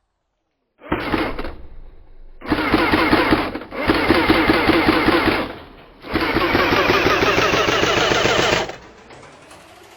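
Airsoft electric gun firing long full-auto bursts, its gearbox buzzing with a fast, even rattle of shots. There are four long bursts, and the last one rises in pitch.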